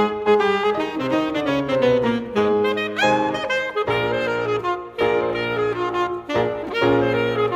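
Background instrumental music; the lead melody slides up in pitch about three seconds in.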